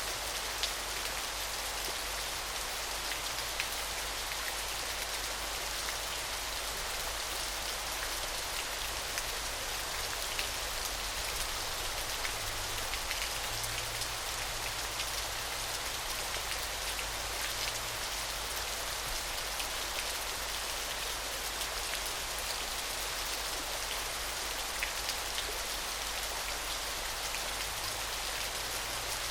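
Small waterfall: water splashing steadily, a bright even hiss with many fine droplet-like ticks through it.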